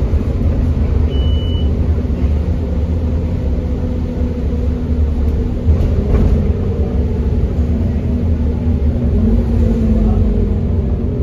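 Interior sound of a Scania OmniCity double-decker bus under way: its nine-litre five-cylinder diesel and ZF Ecolife automatic gearbox give a steady low drone. A brief high beep sounds about a second in.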